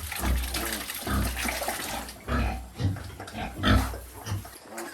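Pigs grunting and squealing, with a few louder calls in the second half.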